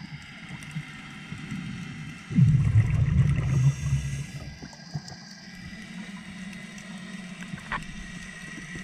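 Scuba diver breathing out through a regulator underwater: a burst of exhaled bubbles rumbling for about two seconds, starting a little over two seconds in, then a quieter stretch with a faint steady high tone and a sharp click near the end.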